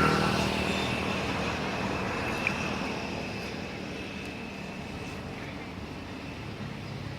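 A passing motor vehicle's engine hum, loudest at the start and slowly fading away, with a thin steady high tone above it that stops about five seconds in.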